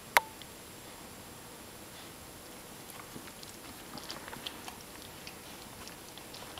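A dog licking and nibbling at another pet's fur: soft, scattered small clicks and smacks, busiest a few seconds in. A single sharp click just at the start is the loudest sound.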